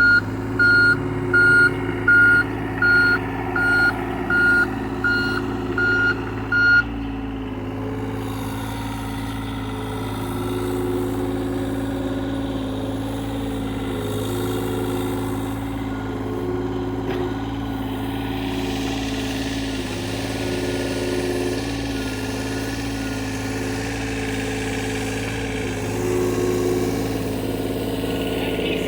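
John Deere excavator's diesel engine running steadily. Its travel alarm beeps about ten times, a little faster than once a second, then stops about seven seconds in, leaving the engine alone.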